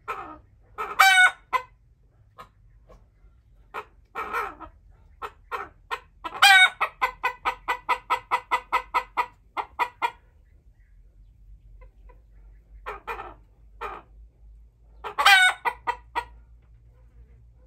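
Chickens calling in a coop: a rooster crows briefly three times, about a second in, in the middle and near the end. Between these, hens cluck in short calls, with an even run of rapid clucks, about four a second, for some three seconds after the middle crow.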